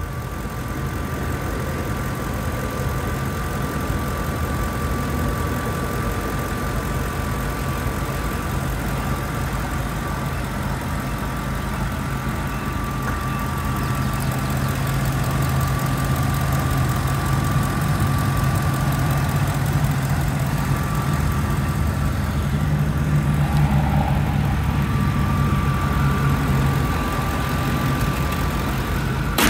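2006 Lincoln Mark LT pickup's 5.4-litre V8 idling steadily under the open hood, a low hum with a thin steady whine above it.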